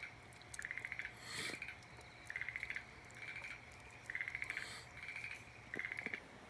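Frogs calling: a run of about seven short, rapidly pulsed trills, one every second or less, two voices answering each other.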